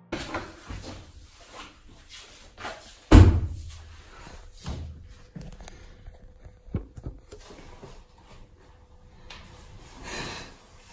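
Handling noise from a phone camera being picked up and set in place: scattered knocks and rustles, with one loud thump about three seconds in.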